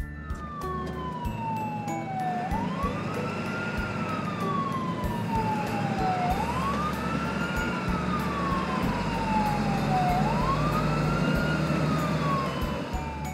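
Ambulance siren wailing: one tone falls slowly for about two and a half seconds, then swoops quickly back up, three times over, with a steady noise underneath.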